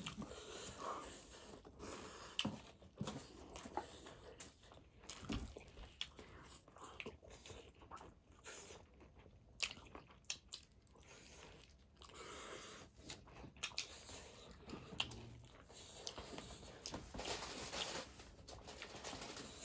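Close-up chewing and biting on pork feet: irregular crunching and sharp wet clicks as skin and cartilage are chewed.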